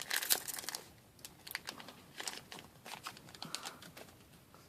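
Trading cards being handled and flipped through one by one: a run of light clicks and snaps, thickest in the first second, then sparser.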